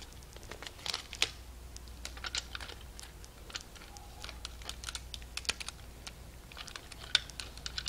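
Irregular light clicks and taps, several each second, from small objects being handled close to the microphone.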